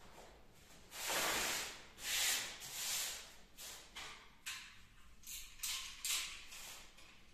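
Paper wallpaper rustling and scraping as the roll is handled and slid on a laminate floor. Two longer swishes come about a second in, then several short, sharp scrapes follow.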